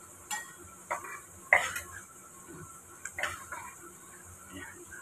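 A utensil stirring and clinking against a small bowl as raw eggs are beaten, in a few separate knocks and scrapes.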